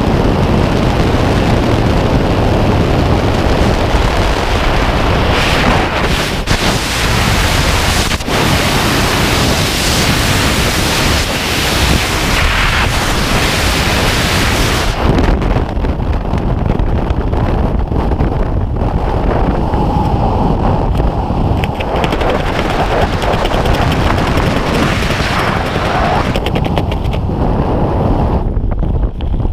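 Freefall wind rushing hard over the camera's microphone as one loud, steady roar. About halfway through the high hiss falls away and a lower, gustier wind noise is left, as the parachute opens and the fall slows.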